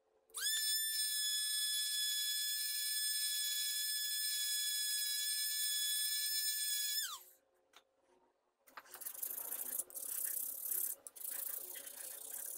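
Handheld rotary tool with a small grinding bit spinning up to a steady high whine as it grinds a steel chisel blade, throwing sparks, then winding down and stopping about seven seconds in. After a short pause, irregular scratching and rubbing sounds as the blade is handled.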